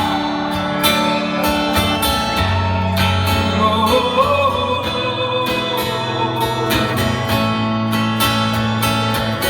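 Live acoustic band music in an instrumental passage between sung lines: guitar strummed in a regular rhythm over sustained low notes.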